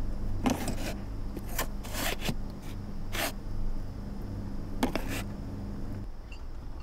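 Plastic food containers scraping and knocking on a refrigerator shelf as they are set down and pushed into place, a string of short scrapes over the first five seconds, over a steady low hum.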